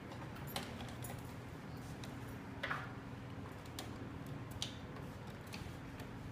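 A few scattered light clicks and taps, the loudest about two and a half seconds in, over a steady low hum.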